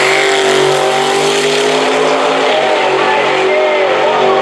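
Drag-race launch: a compound-turbocharged, nitrous-fed 4.5-litre diesel ute and a second car run at full throttle down the strip, their engine note held high and steady.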